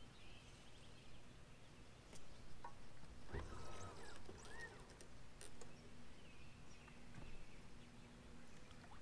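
Faint outdoor ambience with scattered bird chirps and calls. A soft low thump comes about three seconds in, and a faint steady low hum runs underneath.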